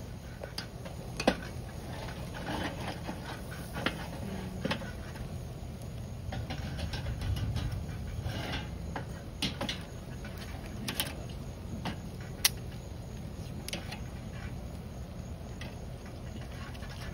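Barbecue-sauced pork ribs cooking on a charcoal kettle grill: irregular sharp pops and clicks of the sauce and fat cooking over the coals, over a low steady rumble.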